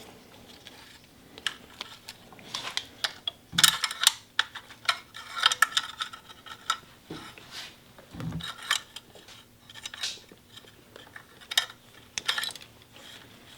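Irregular light clicks and metallic clatter of small parts and a screwdriver being handled while the old cables are worked out of a BMW R1100RT's throttle cable distribution box, with a couple of duller knocks.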